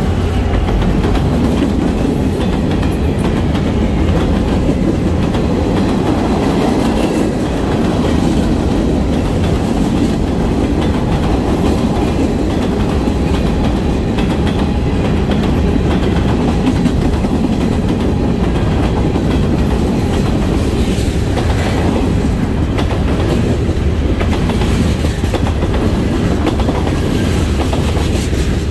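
Long Norfolk Southern manifest freight train passing close by: a steady, loud rumble of covered hoppers and tank cars rolling on the rails, with the train's trailing locomotive going by at the very start.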